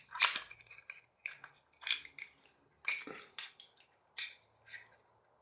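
Irregular short clicks and scrapes of hard plastic and metal as a door closer and its snap-on plastic end piece are handled.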